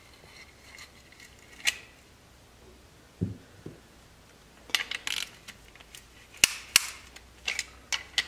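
Piston ring compressor being tightened around a piston with a ratchet: sharp metallic ratchet clicks, a few at first, then coming in quick clusters in the second half.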